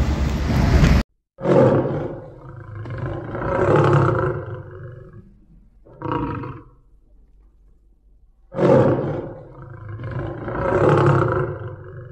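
Car noise cuts off abruptly about a second in, then a tiger roars: a roar, a longer one that swells and fades, a short grunt, then the same pattern again.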